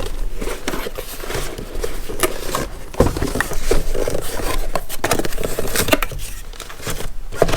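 Packaging being handled as the contents are taken out of an opened tool box: rustling and crinkling with scraping and many small knocks.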